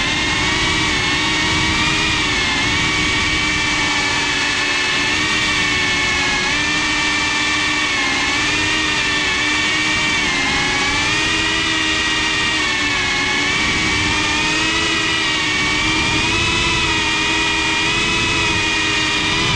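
FPV quadcopter's motors and propellers whining steadily up close, from the GoPro mounted on the drone. The pitch wavers gently up and down as the throttle changes.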